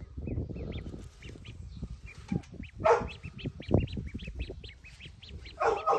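Duckling peeping over and over in short, high calls. Two louder, lower calls stand out, about three seconds in and again near the end, over rustling and handling noise.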